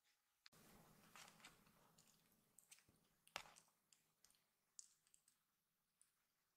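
Faint rustling of kittens wrestling on fleece bedding, with many small scattered clicks and one sharper click a little past the middle.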